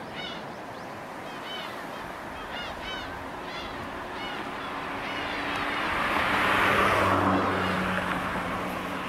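Rushing water of the tsunami surge swelling to a peak about seven seconds in and then easing, with birds calling repeatedly in the first half and a low steady drone under the surge in the second half.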